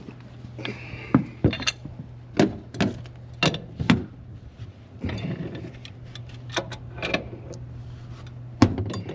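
Scattered metallic clinks and knocks of hand tools and gas pipe fittings being handled, about ten sharp strikes spread irregularly, over a steady low hum.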